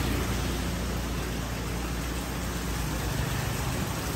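Heavy rain pouring down in a steady hiss, with the low engine rumble of passing traffic underneath.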